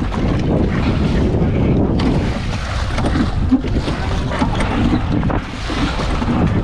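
Strong wind buffeting the microphone, with waves splashing around a small rowing boat on choppy water.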